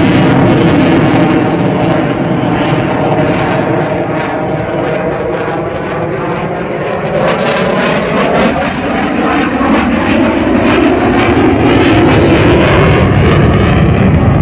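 Eurofighter Typhoon's twin EJ200 jet engines at display power, loud throughout, with the engine pitch bending as the fighter moves past. The sound eases a little in the middle and builds again towards the end.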